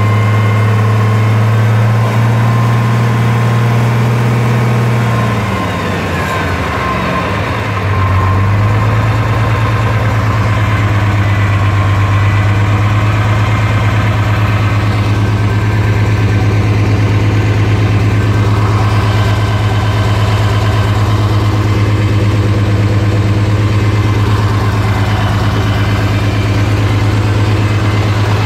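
International Harvester 856 tractor's six-cylinder engine running. About five seconds in its speed drops, and from about eight seconds it settles into a steady, deeper running note.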